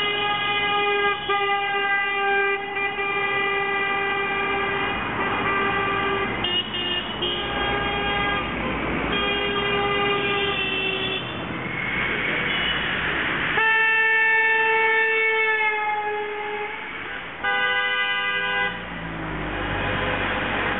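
Car horns honking in long, held blasts from passing traffic, several one after another and some overlapping, the loudest about two-thirds of the way through, with traffic noise near the end. The honks are drivers' signals of support for a roadside protest that asks them to honk.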